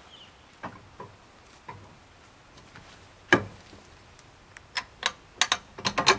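Clicks and knocks of a bike rack's mast and a half-inch bolt being handled and lined up for fitting: a few light taps, one sharp knock about three seconds in, then a quick run of clicks near the end.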